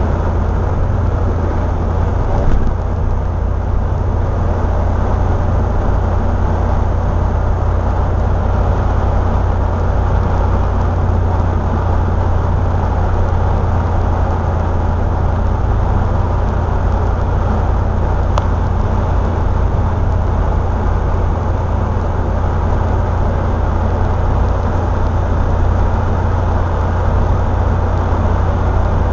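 Triumph Spitfire 1500's four-cylinder engine running steadily at cruising speed, with a constant low hum under road and wind noise, heard from inside the car.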